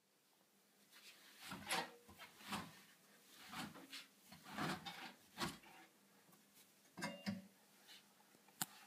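Irregular soft knocks and rustling as laundry is handled in the open drum of a front-loading washing machine. There is a sharp click near the end.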